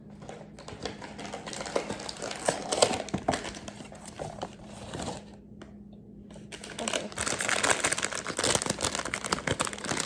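Packaging of a blind-box mini figure being torn open and crinkled by hand, in two spells with a short pause about five seconds in, the second spell louder.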